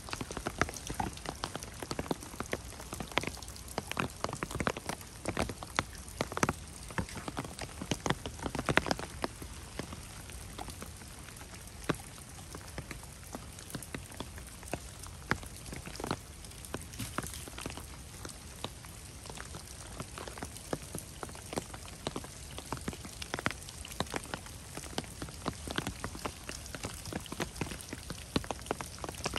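Rain falling steadily, with many sharp drop hits pattering close by over a soft hiss. The hits come thickest and loudest in the first third.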